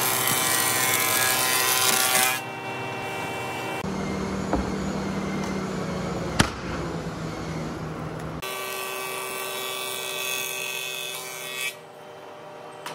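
Wood planer running with a board passing through, cutting off about two seconds in. Then a quieter stretch with a sharp wooden knock as a plank is laid on a stack, and the machine noise comes back for about three seconds near the end.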